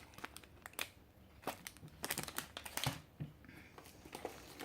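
Plastic packaging crinkling and rustling as small items are handled, with scattered light clicks and taps.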